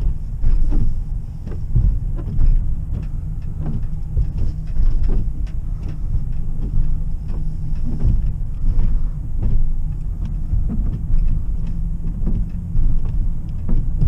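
Car driving slowly on a snow-covered road, heard from inside the cabin: a steady low rumble of tyres and engine, with faint scattered ticks and knocks.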